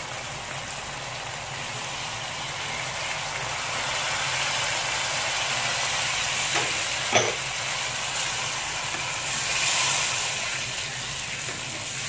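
Tamarind and fish-sauce liquid sizzling in a hot wok over garlic, chilli and palm sugar as it heats toward the boil, a steady hiss that swells near the ten-second mark. A wooden spatula knocks against the wok twice a little past halfway, over a steady low hum.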